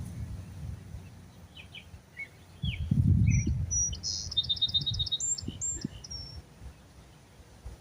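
Small birds chirping and calling, with a quick run of about eight rapid notes in the middle. A low rumble on the microphone a few seconds in is the loudest sound.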